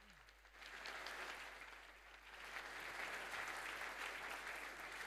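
Audience applauding, faint and steady.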